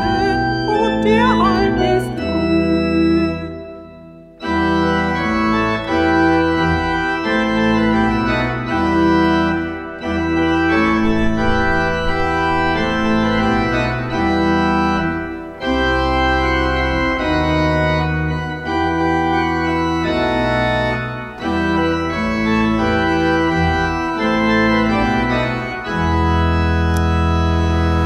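Church pipe organ playing a slow run of sustained chords, with a short break about four seconds in.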